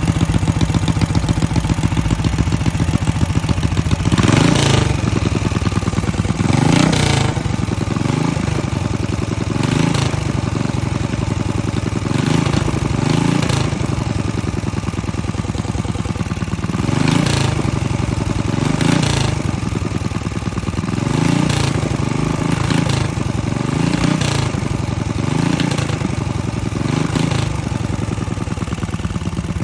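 Racing banca boat engine running at idle, then blipped in short revs every couple of seconds from about four seconds in, about a dozen times, dropping back to idle between each.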